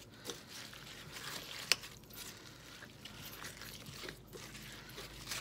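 Chicken salad in mayonnaise and sour cream being stirred in a glass bowl: soft, moist mixing sounds with small clicks, and one sharp click a little under two seconds in.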